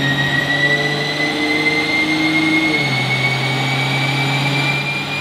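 Nissan GT-R's twin-turbo 3.8-litre V6 running steadily on a chassis dyno at light load. The engine note drops a step about three seconds in, like an upshift, and a high whine rises slowly as speed builds. It runs smoothly on a fuel of about 62% ethanol while still on its 93-octane tune.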